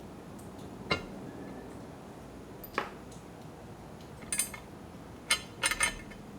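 A handful of short, sharp clinks and knocks: single ones about a second in and near three seconds, then a quick pair, then three in close succession near the end.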